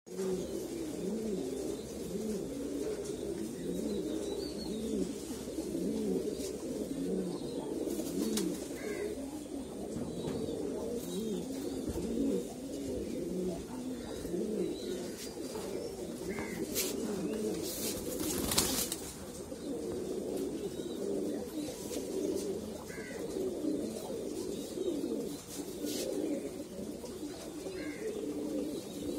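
A flock of fantail pigeons cooing, many low rolling coos overlapping without pause. A few brief sharp clicks and rustles cut in, the loudest about two-thirds of the way through.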